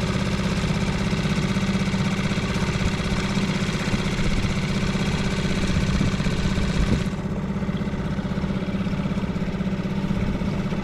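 Boat's outboard motor running steadily at low speed. About two-thirds of the way through its high hiss drops away suddenly and it runs a little quieter.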